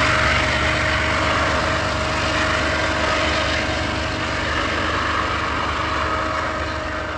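GE TE33AC diesel-electric pusher locomotive's GEVO-12 engine working hard at the rear of a freight train: a steady drone with a humming tone that slowly fades as the train pulls away.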